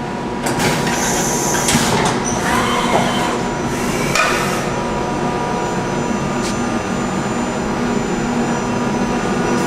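Okuma & Howa Millac 438V CNC vertical machining center running as a program starts: a steady machine hum with held tones, several noisy bursts in the first half, and a whine that rises and falls about three seconds in. There are a couple of sharp clicks later on.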